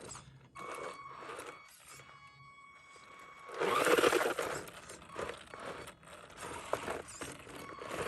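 1/10 scale RC rock crawler working over rock, its tyres crunching and scraping, with a faint whine at first. A louder stretch of scraping and crunching comes about three and a half seconds in.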